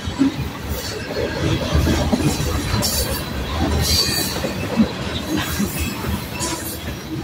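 Freight train of covered hopper cars rolling past: a steady rumble and rattle of wheels on rail, with brief high wheel squeals about three and four seconds in. The last car passes near the end.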